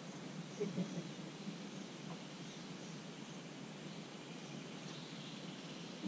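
Steady outdoor background hiss with no distinct event, and a faint voice-like sound under a second in.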